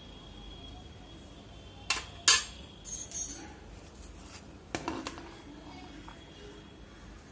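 A steel spoon clinking against a glass bowl: a few sharp clinks about two seconds in, the loudest at about two and a half, a short cluster around three seconds, then a last knock about five seconds in as the spoon is set down.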